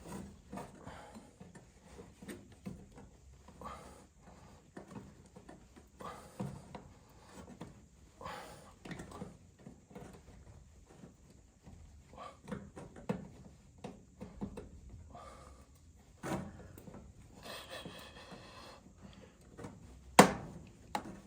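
Irregular knocks, taps and rubs of hands and tools working on the furnace, with a short scraping patch near the end and one sharp, loud click just before the end. No steady motor or burner sound comes through.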